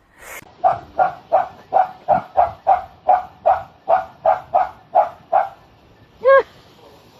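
A dog barking in a steady run, about three barks a second for some five seconds, then one longer call about a second after the run stops.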